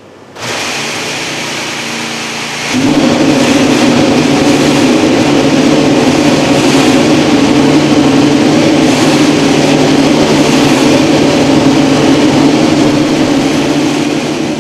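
Ferrari 2016 Formula 1 engine, a 1.6-litre turbocharged V6, running. It starts at a moderate level, then about three seconds in jumps to a loud, steady note that holds and eases off near the end.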